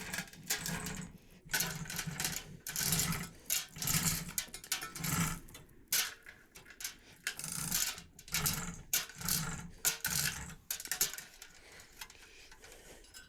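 Irregular scraping, rustling and knocking: a tight-fitting insulation blanket being pushed and worked into place in a Hotsy hot-water pressure washer. The noises come in uneven bursts about every half second to a second and die down near the end.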